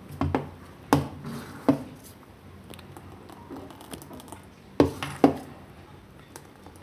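Steel ladle stirring thin semolina batter in a stainless-steel pot, knocking against the pot about five times: three knocks in the first two seconds and two close together a little before the end.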